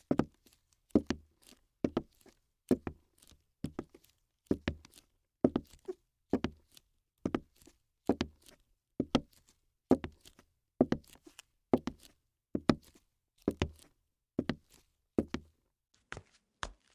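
A regular series of dull knocks, about one a second and evenly paced, each with a sharp click on top.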